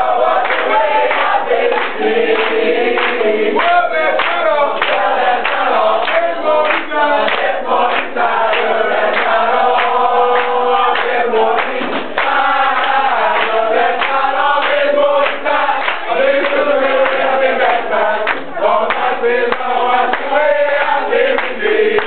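A group of people singing together, loud, many voices at once.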